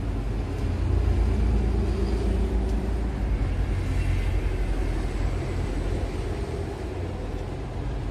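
A steady low rumble, a little louder in the first few seconds and easing slightly toward the end.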